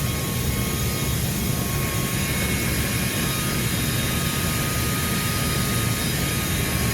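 Terry steam turbines running steadily, belt-driving the induced draft fans: a constant low machinery noise with a thin high whine held at one pitch.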